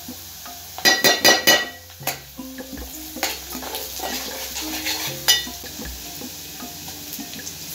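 Metal spoon striking and scraping an aluminium pot, a quick run of ringing knocks about a second in and one more a few seconds later, over the steady sizzle of onions frying in oil.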